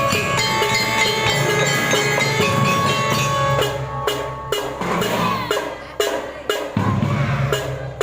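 Marching drum band playing: held melodic notes for the first few seconds, then the drums take over with a run of strikes on bass drum and snare.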